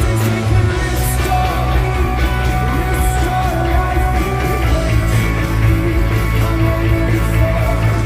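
Live rock band playing loudly through a stretch without lyrics: heavy bass and drums under sustained guitar notes, with occasional cymbal hits.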